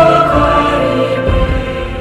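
Background music of choir-like voices holding long, chant-like notes, growing quieter toward the end.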